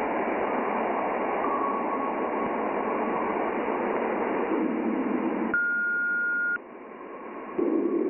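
Sonified plasma-wave recording from NASA's Juno spacecraft in Jupiter's ionosphere: a radio-static hiss. A steady beep sounds for about a second just past the middle, after which the hiss drops away and comes back louder near the end.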